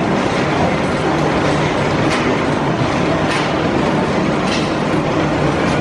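Intamin inverted roller coaster train rolling along its steel track, a loud steady rumble of the wheels with light clacks every second or so from about two seconds in.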